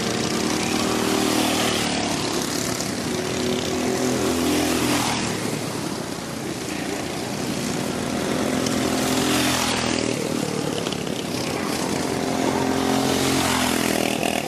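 Racing kart engines going past one after another on a kart track, their high-revving buzz swelling and fading with each pass and the pitch sliding up and down as the drivers shift speed through the corners.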